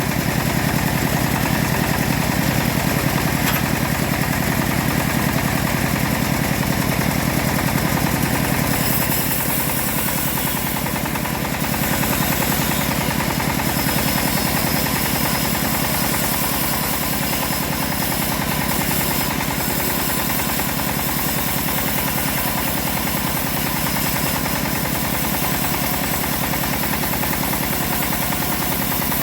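Engine-driven homemade bandsaw mill running steadily while sawing teak, a constant engine drone with a rapid, even firing pulse. The sound shifts briefly around ten seconds in.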